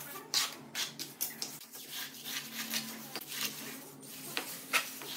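A plastering float and trowel scraping across wet cement mortar on a vertical surface, in a series of short, uneven smoothing strokes.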